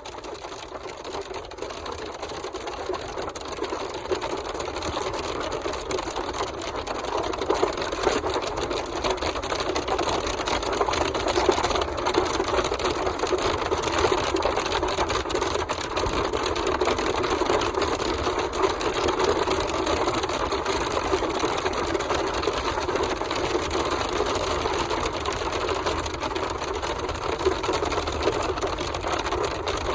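Rain and hail drumming fast and dense on a moving vehicle's roof and windshield, heard from inside the cabin along with road noise. It builds over the first several seconds, then holds steady.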